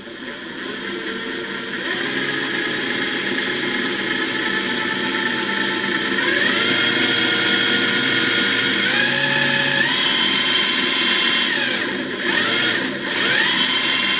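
Makita 18V brushless cordless impact driver running free with a long bit and no load, its motor whine rising in pitch in several steps. Near the end the whine dips briefly and climbs again.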